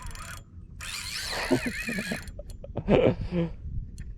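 Spinning reel's drag buzzing as a hooked red drum runs and pulls line off the spool, the whine wavering in pitch with the fish's pull.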